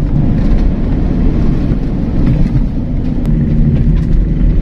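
Steady low rumble of a moving vehicle, engine and tyre noise heard from on board as it drives along a road.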